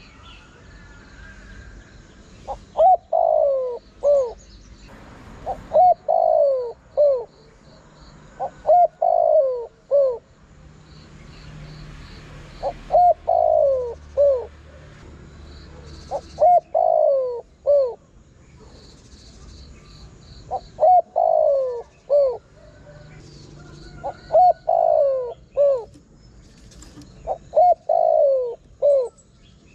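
Spotted dove cooing: about eight phrases, one every three to four seconds, each a few short coos running into longer coos that fall in pitch. Faint high, rapid chirping sounds behind them.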